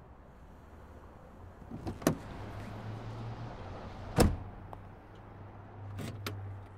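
A car door clicking open, then slammed shut about two seconds later, the loudest sound here. Two light clicks follow near the end, over a low steady hum.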